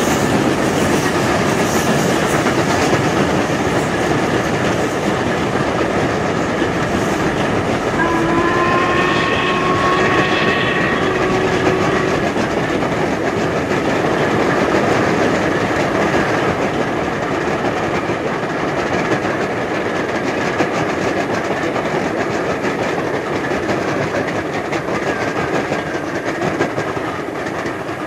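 Recording of a steam train running at speed, a steady rumble with wheels clattering over rail joints. About eight seconds in, the locomotive's whistle sounds for about four seconds, rising slightly in pitch.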